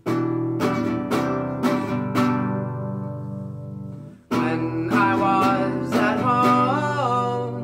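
Nylon-string classical guitar strummed, about two strums a second at first, the chords ringing out. The playing stops briefly about four seconds in, then strumming resumes with a man singing over it.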